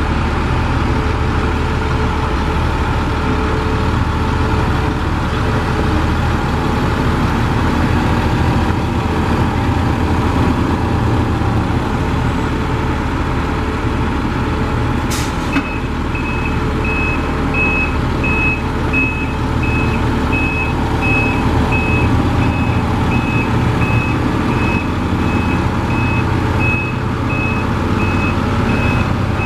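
The Detroit Diesel 6-71 two-stroke six-cylinder diesel of a 1985 Autocar KM64F truck runs steadily as the truck is driven. About halfway through there is a sharp click, and a reversing alarm starts beeping steadily.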